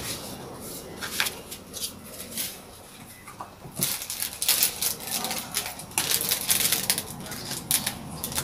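Clear plastic packaging and paper booklets being handled: a run of crinkles and rustles, sparse at first and thicker from about four seconds in.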